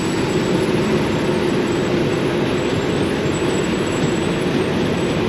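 Steady mechanical rumble of a truck rolling slowly, heard from inside the cab.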